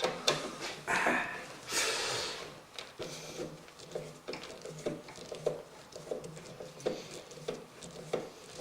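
Hand screwdriver driving a tight, ill-fitting screw into a computer power supply's mounting holes: handling and rustling at first, then a short creak with each turn of the screwdriver, about twice a second.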